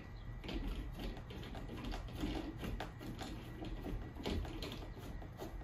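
Metal futon leg being twisted by hand onto a sofa-bed frame: irregular light clicks and scrapes of metal against the frame.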